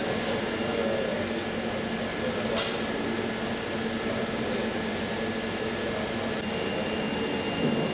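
Steady hum of workshop machinery, with a few constant tones held throughout and a single short click about two and a half seconds in.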